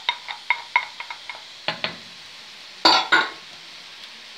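Wooden spatula stirring chopped leeks and onions in a wok, tapping against the pan in a quick run of light ringing clicks, then one louder clatter about three seconds in. A faint sizzle of the vegetables frying runs underneath.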